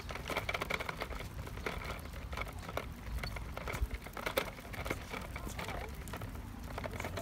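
Plastic toddler tricycle rolling over concrete paving stones: its hard plastic wheels give an irregular rattle of small clicks and knocks over a low rumble.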